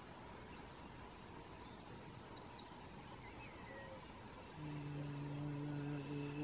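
Faint outdoor background with a few short bird chirps, then about four and a half seconds in a woman starts a low, steady closed-mouth hum held on one note: the vibrating healing sound for the lungs in Qi Gong practice.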